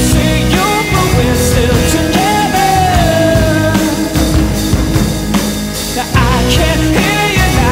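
Rock music with singing.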